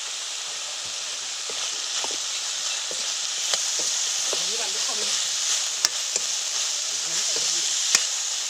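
Pad kaprao stir-fry sizzling steadily in a hot pan while it is stirred, with a few sharp clicks of the spatula against the pan.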